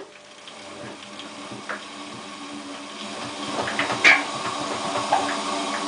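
Hotpoint Ultima WT960 washing machine running with a steady motor hum and irregular clicks and knocks from the drum, growing louder about halfway through, with one sharp knock. The owner puts the noise down to worn drum bearings.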